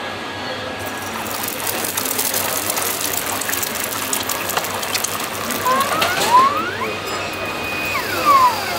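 Eggs tipped from the robotic fried-rice cooker's ingredient box start sizzling in hot oil in its pan. Over the last few seconds the machine's motor whines, rising, holding, then falling, as its arm swings the lid down onto the pan.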